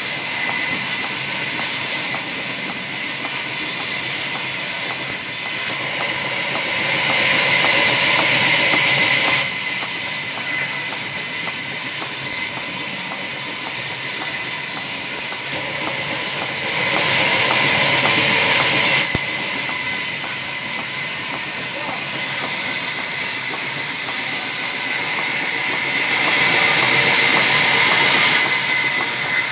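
Large belt-driven sawmill band saw running steadily. Three times, about three seconds at a time, it swells into a louder hissing rasp as the blade cuts through a timber plank.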